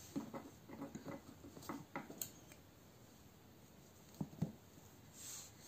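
Faint rustling of metallic tinsel yarn and a crochet hook being handled as the last loop is pulled through, with two small clicks about four seconds in.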